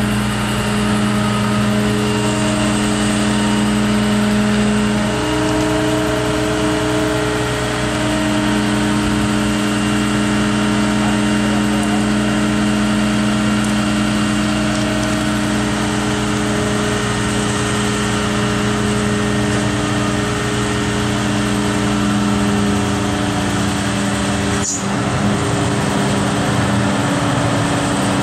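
Mobile crane's diesel engine running steadily while hoisting a load, its note shifting a little twice in the first several seconds. One sharp click near the end.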